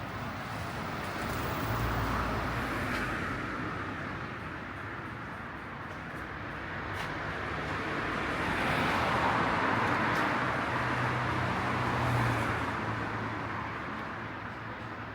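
Road traffic passing: engine and tyre noise swells as a vehicle goes by about two seconds in, then a louder, longer swell from about eight to twelve seconds in.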